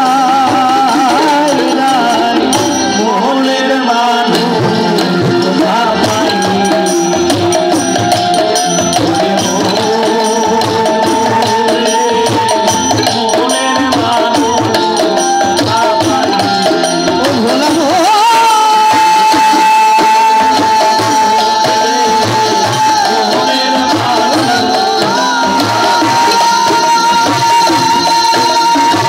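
A live band playing through a PA loudspeaker: drums keep a steady rhythm under a melody line, which holds long steady notes in the second half.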